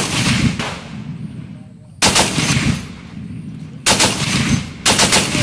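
Browning M2 .50-calibre heavy machine gun firing four short bursts: one at the start, one about two seconds in, one near four seconds and one about five seconds in. Each burst is a quick string of heavy shots followed by a long fading echo.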